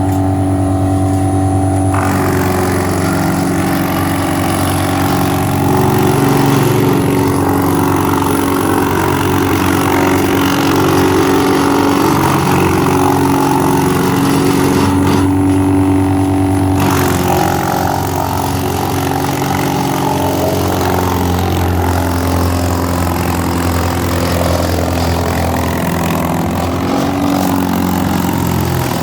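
Greenmech wood chipper running steadily, with the noise of branches being chipped starting about two seconds in, stopping briefly near the middle, then resuming.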